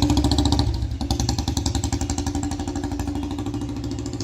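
Old Royal Enfield Bullet 350 single-cylinder four-stroke engine idling with a steady, even beat. It drops slightly in loudness just under a second in.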